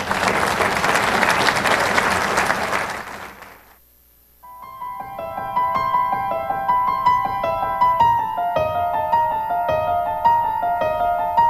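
Audience applauding for nearly four seconds, the clapping fading away into a brief gap. Then piano music starts, a slow run of single notes that carries on from there.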